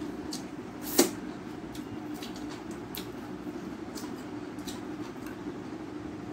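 Fingers mixing rice and mashed roasted aubergine on a steel plate, with scattered soft clicks and one sharp click about a second in. A steady low hum runs underneath.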